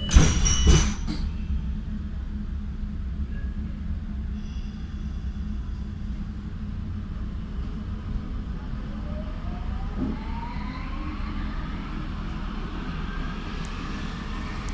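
Nuremberg U-Bahn DT1 train heard from inside the car as it pulls away from a station. There is a steady low rumble of the running gear, a couple of loud knocks in the first second, and a whine that climbs steadily in pitch from about eight seconds in as the train picks up speed.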